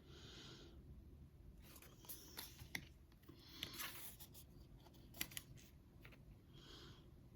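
Pokémon trading cards being handled: three soft swishes of cards sliding over one another, with a few light ticks as they are flipped.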